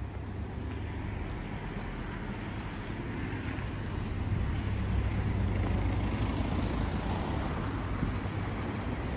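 Road traffic: a car driving by on the street, its noise swelling about halfway through, over a steady low rumble.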